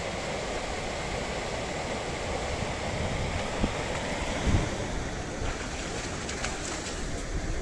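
Steady rush of flowing river water with wind on the microphone, and a dog splashing as it wades out of the shallows. Two low thumps stand out about halfway through.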